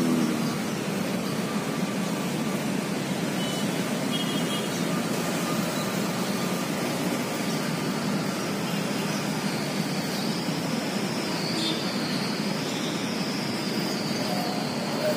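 Steady, even noise of road traffic, with a faint high wavering whine coming in about halfway through.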